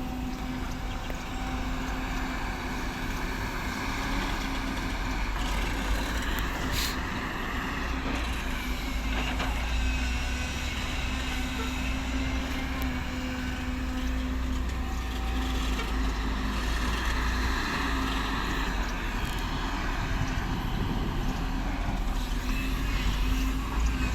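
Excavator's diesel engine running steadily under working load while it digs, with the hydraulics rising and falling in slow swells.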